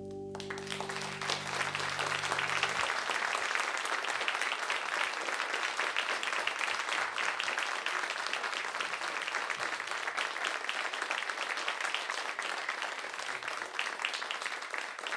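Audience applauding steadily. The music's last held low chord rings under the clapping for about the first three seconds, then cuts off.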